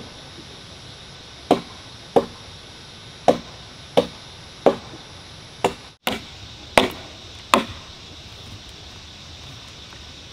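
Chopping with a blade: a series of about nine sharp strikes, roughly one every two-thirds of a second, stopping about three-quarters of the way through.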